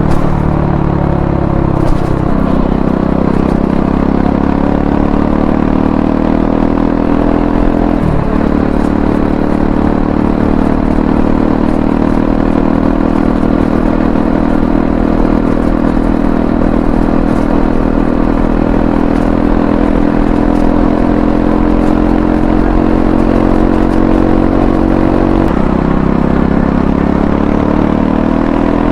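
Triumph Scrambler 400X's single-cylinder engine running under way, with brief breaks in pitch about two seconds and eight seconds in. It then holds a steady note for most of the time and climbs in pitch near the end as the bike accelerates.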